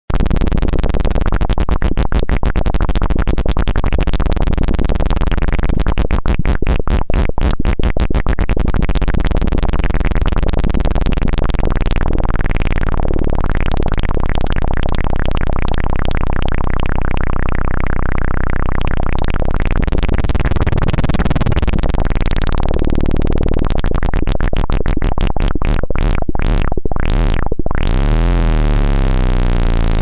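Loud, continuous electronic synthesizer noise put through a sweeping flanger-like effect, whooshing up and down in pitch with a fast flutter early on. Near the end it settles into one long falling sweep.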